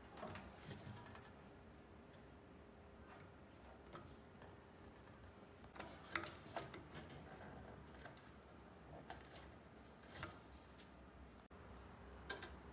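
Faint handling noises: small clicks and rubbing as hands work the laser tube's wire connections and silicone water hose, with a sharper click about six seconds in and a couple more near the end.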